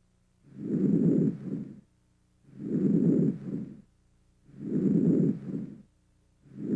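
Normal vesicular breath sounds heard over the chest through a stethoscope: a soft, low-pitched rustle through each inspiration that fades out early in expiration. It repeats about every two seconds, with a short silent gap between breaths.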